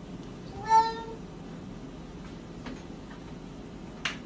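A domestic cat meows once, a short call about a second in. A single sharp click follows near the end.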